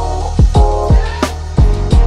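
Background music with a steady beat: drum hits about twice a second under sustained instrumental notes.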